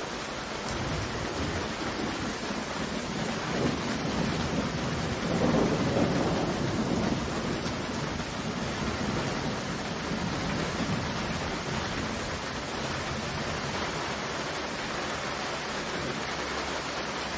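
Thunder rumbling over steady rain: one long roll that builds from about a second in, is loudest around the middle and fades away over several seconds, while the rain's hiss carries on evenly.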